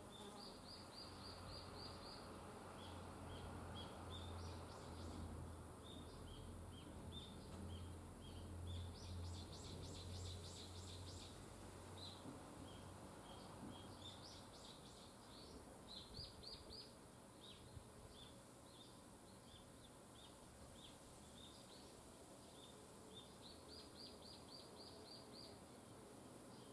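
Small birds chirping and twittering faintly, with many short high notes and now and then a quick run of six to eight repeated notes. A faint low hum sits underneath and fades out about halfway through.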